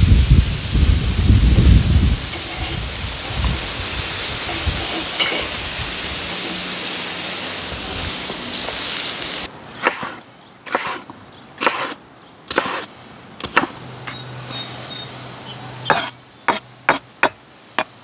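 Steak, peppers and onions sizzling on a charcoal kettle grill grate, a steady hiss with a low rumble in the first two seconds. About halfway through it gives way to a chef's knife chopping grilled green pepper on a wooden cutting board: sharp single knocks about a second apart, then a quicker run of chops near the end.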